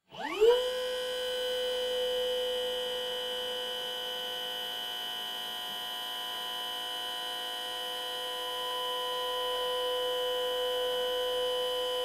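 Forklift truck's lift motor and hydraulic pump spinning up with a quick rising whine, then holding a steady whine as the forks are raised.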